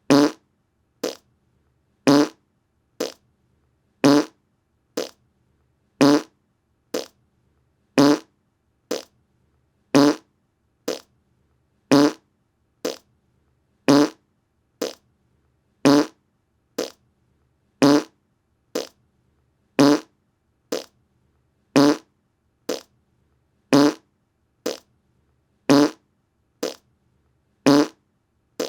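Short fart sounds repeating about once a second in a steady loop, alternating a louder, longer one with a quieter, shorter one, each with a low buzzing pitch.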